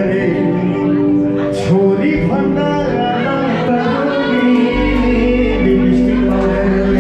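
Live band music with a singer, played through the venue's PA speakers: sung melody over guitar and drums, with a deep bass note coming in a little under five seconds in.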